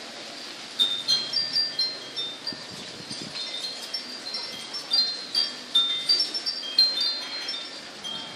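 Wind chimes ringing irregularly as storm wind swings them: many short, high, clear notes struck at random, more frequent from about a second in.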